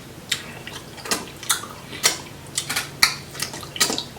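Close-up eating sounds from a seafood boil: about ten sharp, irregular wet clicks and smacks from chewing and handling saucy crab and shrimp.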